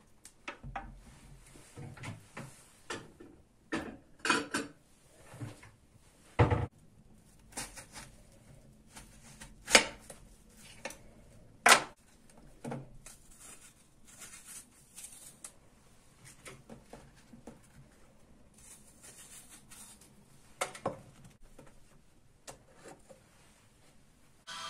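Kitchen handling sounds while an apple is cut into slices with a knife over a glass plate: scattered sharp clicks and knocks of the knife, plate and bowl at uneven intervals.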